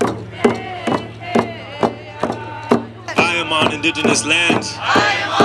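Native hand-drum song: a group beats hide frame hand drums in a steady beat of about two strikes a second while singing together. The singing gets louder and fuller, with more and higher voices, from a little past halfway.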